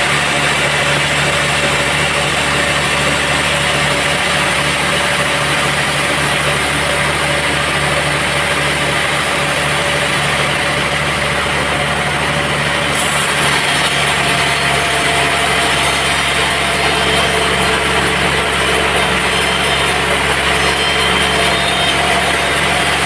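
Sawmill machinery running steadily, a constant engine-like drone with no pauses or impacts.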